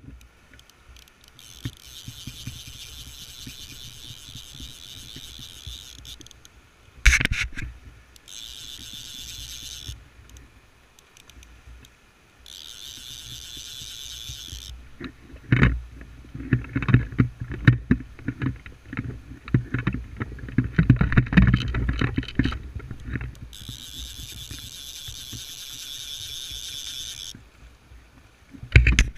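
A hooked trout splashing at the surface while being played on a fly rod, with several bursts of rapid clicking from the fly reel lasting a few seconds each. Irregular thumps and splashes fill the middle stretch, and there is a sharp knock about seven seconds in.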